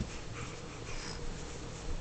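A baby's soft, breathy snuffles and little snorting breaths, a few short ones spread through the moment.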